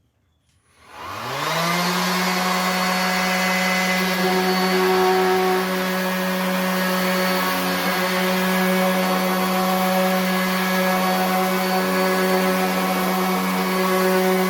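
RIDGID 18-volt cordless 5-inch random orbit sander switching on about a second in, its whine rising quickly to full speed and then running steadily, as if sanding a rough piece of wood.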